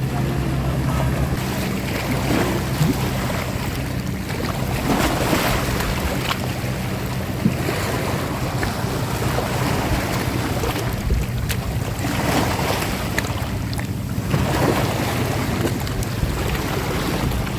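Sea waves washing and wind buffeting the microphone, over the steady low hum of a boat engine idling. The hum fades a few seconds in and returns near the end.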